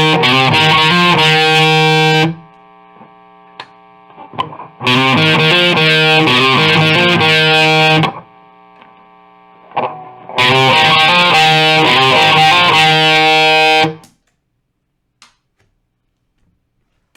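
Squier Classic Vibe Starcaster electric guitar played with distortion: three short phrases, each a quick run of notes ending on a ringing chord that is cut off suddenly, with a low amp hum in the gaps between them. The playing stops about three seconds before the end.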